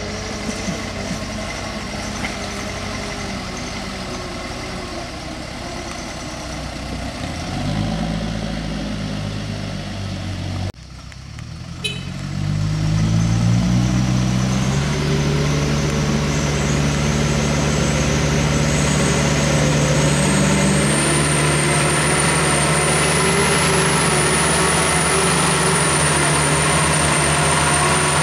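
Diesel engine of a loaded Mitsubishi light truck labouring through deep mud. About halfway through it revs up in steps, then holds a loud, steady drone under heavy load, with a high whine coming in over it in the second half.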